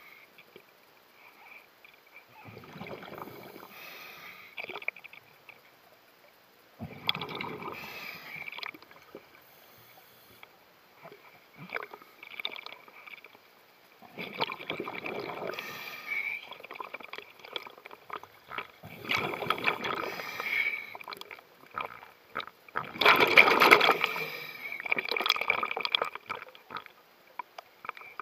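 Scuba diver's own breathing through a regulator, heard underwater through a mask-mounted camera: five long bubbling exhalations a few seconds apart, the loudest a little before the end, with a faint steady high tone underneath.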